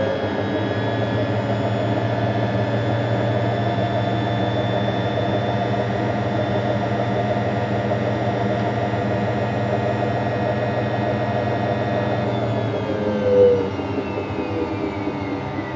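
Hotpoint Electronic 1000 Plus 9534 washing machine drum spinning, its motor whining at a steady speed. About twelve seconds in, the whine falls away as the spin slows, with a single brief thump just after.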